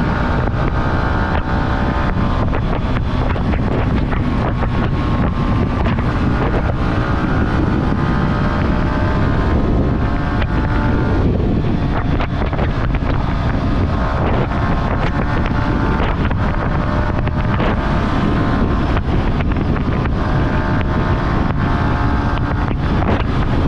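Yamaha R15's single-cylinder engine pulling under way, its note climbing slowly, with a break about eleven seconds in, then climbing again. Heavy wind rushes over the microphone throughout.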